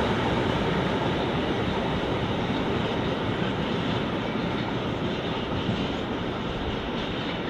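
Freight train's covered wagons rolling past on the rails, a steady rumble of wheels that slowly fades as the last wagons move away.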